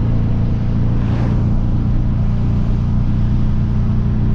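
Hyundai Veloster Turbo's turbocharged 1.6-litre four-cylinder, fitted with a catless downpipe, running steadily at an even engine speed while the car cruises.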